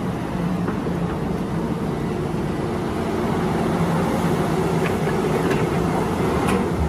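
Large hydraulic mining excavator's diesel engine running steadily under load as it swings a full bucket of rock, with a few sharp clacks in the last couple of seconds as the load drops into a steel dump-truck bed.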